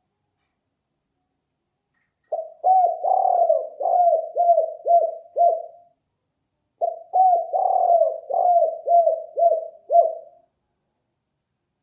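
Spotted dove cooing: two runs of about ten quick, falling coo notes each, the first starting about two seconds in and the second about a second after the first ends.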